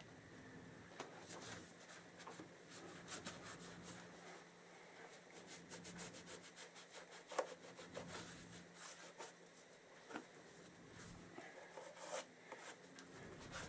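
Faint rubbing and wiping as the rear final drive is cleaned over by hand after its oil change, with scattered light clicks and taps.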